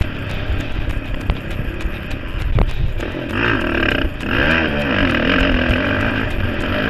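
Motocross bike engine heard from the rider's helmet camera, revving up and down repeatedly as he rides the track, over a rush of wind and track noise. A sharp knock sounds about two and a half seconds in.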